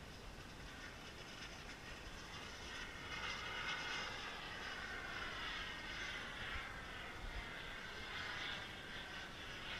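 Turbine engine of a Falcon 120 radio-controlled model jet whining as it flies past in the distance. It grows louder a few seconds in, and its pitch falls slowly as it passes.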